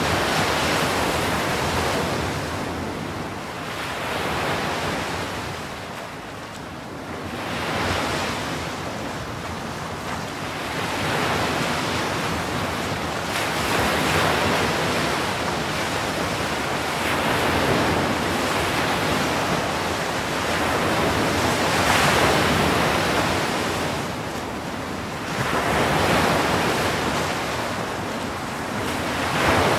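Ocean surf: waves breaking and washing in as foam over the shore, the rush of water swelling and falling back about every four seconds.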